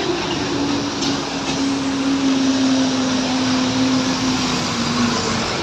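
Passing road traffic: a large truck's engine running with a steady hum that sinks slightly in pitch and fades out near the end, over continuous road noise.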